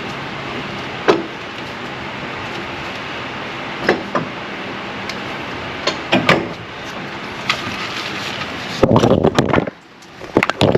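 Scattered sharp metal knocks and taps from hand tools working on the AC compressor, over a steady background hiss. Near the end comes a loud jumbled clatter as the camera is knocked over, and then the background hiss drops away abruptly.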